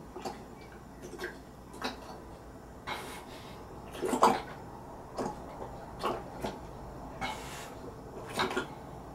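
A person chugging eggnog straight from a half-gallon jug: short gulps and swallows about once a second, with the liquid glugging in the jug.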